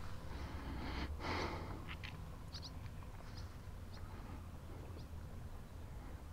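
Quiet waterside ambience: a steady low rumble, a short breathy rush of noise about a second in, and a few faint, brief high chirps scattered through the rest.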